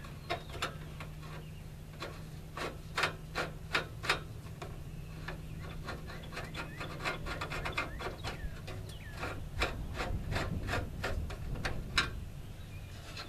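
Screwdriver working a screw out of the metal headlight trim on a Ford F-150: a run of irregular small clicks and scrapes of metal on metal, over a steady low hum.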